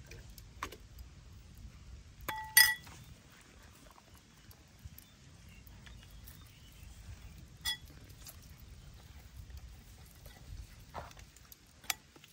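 Metal spoon clinking against a small bowl while a dipping sauce is mixed: a few sharp, ringing clinks, the loudest two together about two and a half seconds in, another near eight seconds and one near the end, with lighter taps between.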